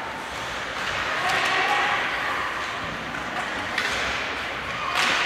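Ice hockey game in an arena: spectators' voices and calls over the steady hum of the rink, with a sharp knock of stick or puck about four seconds in and a louder clatter near the end as players scramble at the net.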